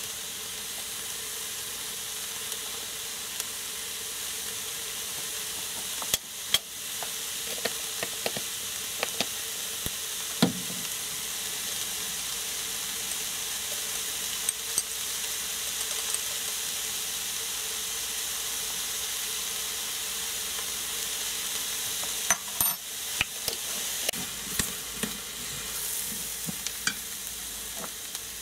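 Diced vegetables frying in an Instant Pot's stainless steel inner pot, a steady sizzle, with scattered clicks and scrapes of a spoon stirring against the pot, busiest about six seconds in and again near the end.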